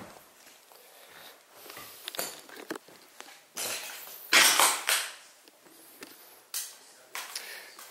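Footsteps with knocks, scrapes and clatter of debris on a broken, rubble-strewn floor, coming in irregular bursts, with a louder clatter about four and a half seconds in.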